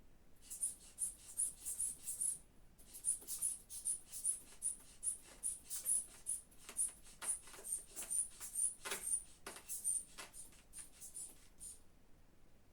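Rubber hand bulb of a manual blood-pressure cuff squeezed over and over, about two squeezes a second, each with a short hiss and a high squeak of air through its valve, inflating the cuff on the arm. It pauses briefly about two seconds in.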